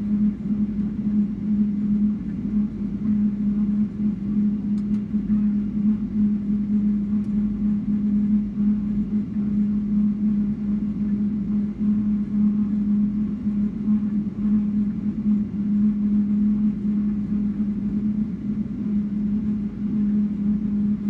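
Cabin noise of a Boeing 777-300ER standing still with its engines idling: a steady drone with one strong low hum.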